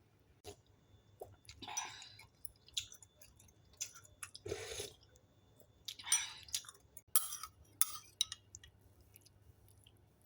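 Someone eating soup: scattered light clinks of a spoon against a bowl, with short sipping and chewing sounds.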